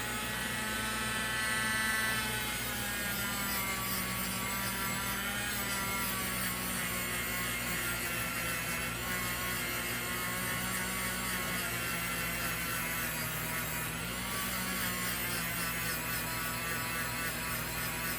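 Dremel rotary tool with a small wire brush running steadily, its motor pitch rising and dipping throughout.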